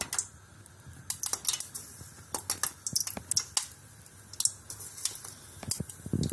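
Balls of lachha semai vermicelli batter deep-frying in hot olive oil, crackling in scattered, irregular pops, with a low thump near the end.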